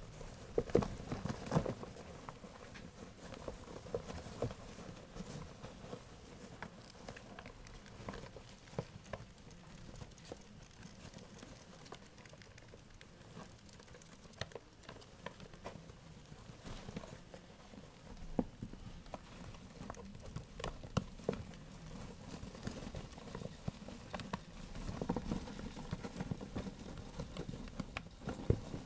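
Young pet rats scrabbling over pelleted paper bedding and a plastic hideout: a fairly quiet, irregular patter of small scratches, taps and rustles, busier about a second in and again near the end.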